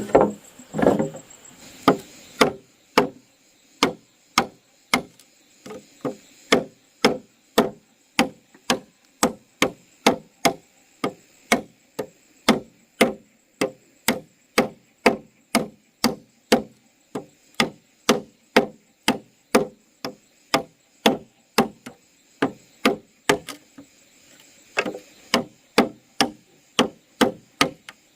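Wood being chopped with a hand tool: sharp, even strikes at about two a second, with a couple of short pauses.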